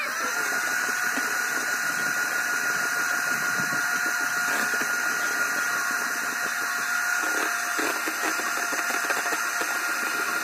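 Electric hand mixer running at one steady speed, a constant motor whine with its beaters whisking in a tall plastic cup.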